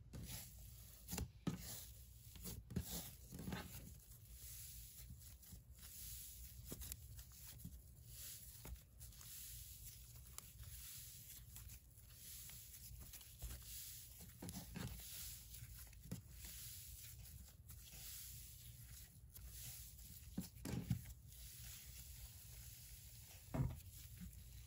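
Wet cloud slime being squished, folded and stretched by hand, giving faint, irregular sticky crackles and tearing sounds, with a few louder pops.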